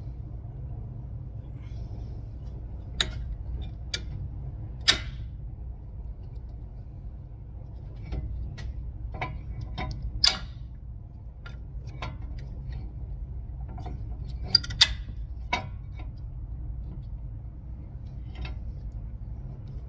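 Scattered sharp metal clicks and knocks, about a dozen of them at irregular intervals, from tools and brake parts being handled during a front brake rotor and pad job, over a steady low rumble.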